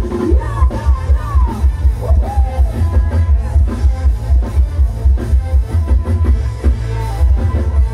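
Loud band music from a Thai mobile stage truck's loudspeakers: a heavy, pulsing bass beat with a singer's voice gliding over it in the first two seconds or so.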